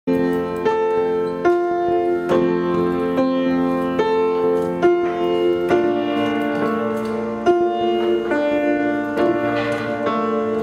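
Acoustic piano playing slow, sustained chords, a new chord struck about every second, starting abruptly from silence.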